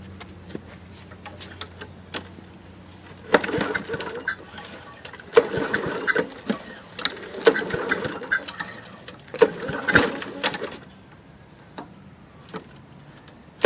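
Walk-behind lawn mower being pull-started four times, each yank of the recoil starter cranking the small engine over in a quick rapid chugging for about a second before it stops without running. These are the first start attempts after the stuck carburetor float was freed and the carburetor cleaned.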